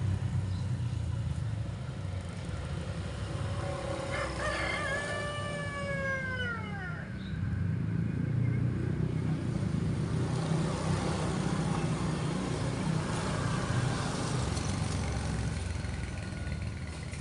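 A rooster crows once about four seconds in: a long call of roughly three seconds, held and then falling in pitch at the end. A steady low rumble runs underneath.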